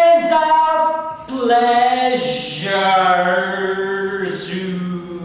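A man singing unaccompanied in long, held notes that glide from one pitch to the next. About two seconds in, a low steady note sets in beneath the melody and carries on like a chanted drone.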